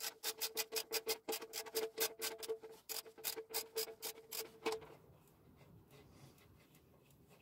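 Hand socket ratchet clicking rapidly, about five clicks a second, as the oil drain plug is screwed back into the engine's sump after an oil change. The clicking stops a little under five seconds in.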